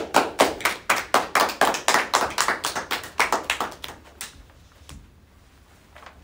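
Hands clapping in a short round of applause, about four to five claps a second, stopping about four seconds in.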